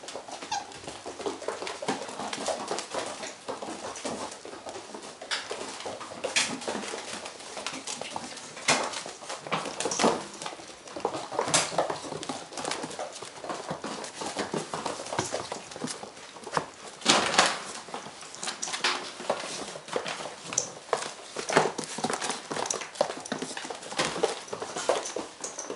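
Weimaraner puppies scampering about on a hard floor: a steady, irregular patter of many small claws and paws clicking, with scuffling as they jostle one another and a few louder knocks, the loudest about seventeen seconds in.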